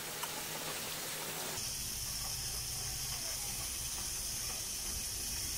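Onions, tomatoes and ginger sizzling in oil in an aluminium wok: a steady hiss that abruptly turns higher and brighter about a second and a half in.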